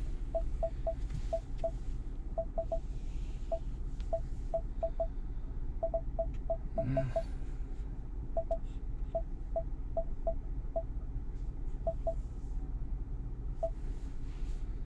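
Ford Sync 4 touchscreen giving short beeps as it is tapped, all at one pitch, irregularly spaced and often in quick twos or threes. The screen is answering touches through its newly fitted screen protector.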